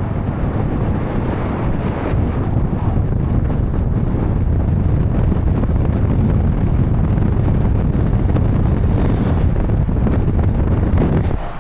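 Loud, steady wind rush buffeting the microphone while the vehicle drives along, with road noise under it; it drops off abruptly near the end.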